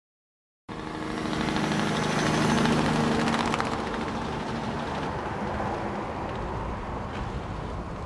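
An engine running steadily, starting suddenly just under a second in.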